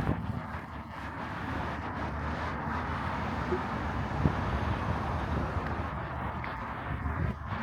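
Street traffic: a steady hum of passing vehicles.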